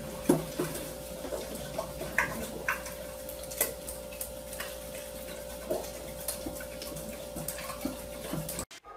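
Irregular light clicks and taps of a spoon against a small cup, the sharpest a moment after the start, over a steady hum.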